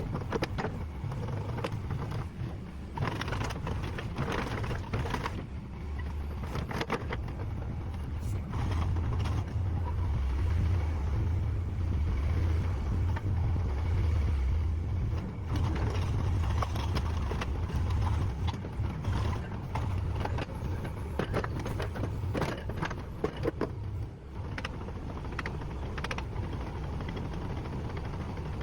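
Cat 306E excavator's diesel engine running steadily, louder through the middle stretch, with scattered short clanks and knocks.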